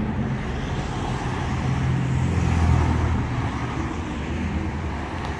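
Street traffic: a car passing on the road, its engine hum and tyre noise swelling about two to three seconds in and then slowly fading.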